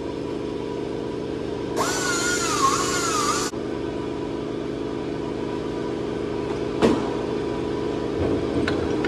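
Air die grinder with an end mill running for about a second and a half, its high whine dipping in pitch as it bites into an aluminum block and then cutting off. A steady low machine hum runs underneath, and there is one sharp knock about seven seconds in.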